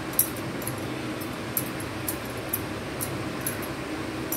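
Soft, sticky clicks of oiled hands pressing and patting rice-flour dough, short and irregular, over a steady low hum.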